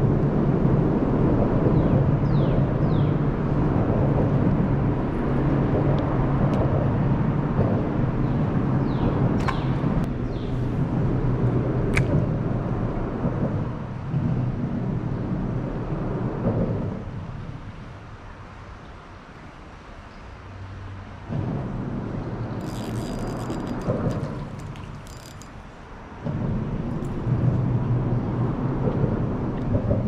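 Heavy low rumble of road traffic crossing the bridge overhead. It fades for a few seconds past the middle and swells again, with a few sharp clicks in between.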